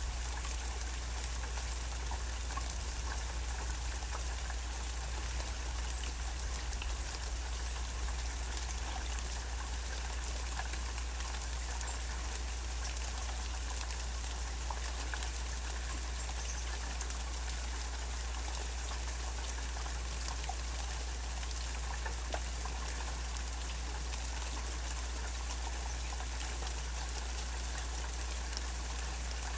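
Steady rain falling, with scattered ticks of individual drops, over a steady low rumble.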